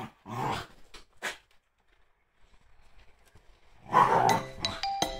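Two dogs, a Shiba Inu and a Beagle, growling as they play-fight, in short growls at the start and again after a quiet stretch. About four seconds in, a music jingle starts over the growling and is the loudest sound.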